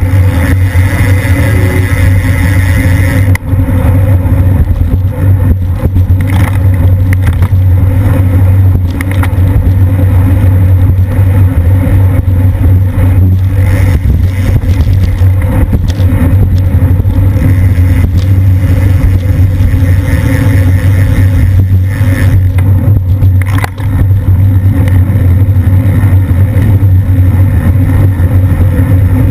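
Wind rushing over the microphone of a camera mounted on a racing bicycle moving at speed in a pack, a loud, constant rumble.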